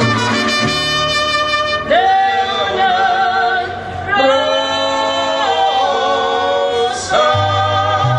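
Mariachi band playing with a singer holding long notes with vibrato, about two seconds in and again from about four seconds, over a pulsing guitarrón bass line.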